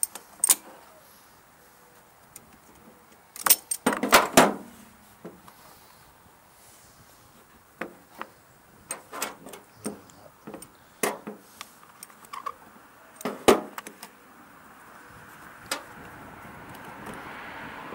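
Scattered metallic clicks and clanks of hand tools and small mower parts being handled during repair, with a quick cluster of louder clanks about four seconds in. A faint steady noise slowly rises near the end.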